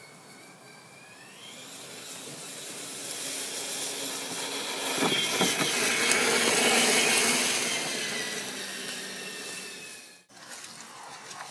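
Axial SCX6 1/6-scale RC crawler's electric motor and gear drive whining as it drives over dry leaf litter, with the tyres crackling through the leaves. The whine rises in pitch near the start and grows louder as the truck comes close, peaking a little past halfway. It then fades, and the sound cuts off abruptly about ten seconds in.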